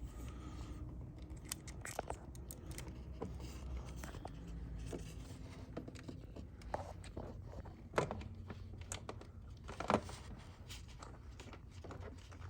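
Small clicks and rustles of plastic parts and screws being handled and fitted by hand, over a low steady hum. Two sharper clicks stand out near the end.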